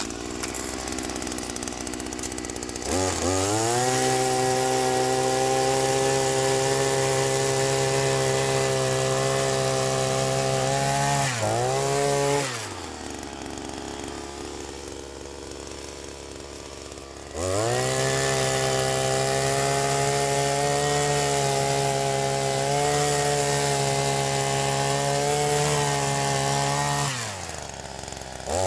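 Chinese petrol ice auger's small engine revved up and held at high speed for about eight seconds, dropped back to idle, then revved and held again for about ten seconds, with a brief rev near the end.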